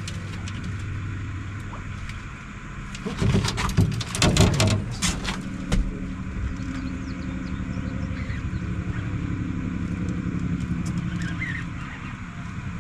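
A boat engine running steadily, with a burst of knocks and rattles about three to six seconds in.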